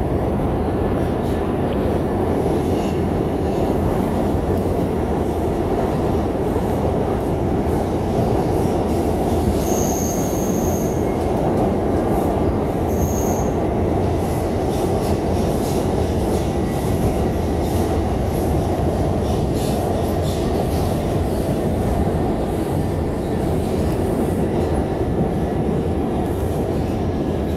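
Bombardier R142 New York City Subway train running steadily, with the continuous noise of its wheels on the rails. Two short, high-pitched wheel squeals come about ten and thirteen seconds in.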